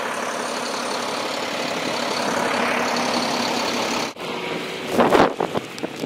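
Heavy truck engine running steadily. It breaks off abruptly after about four seconds, followed by a few loud noisy bursts near the end.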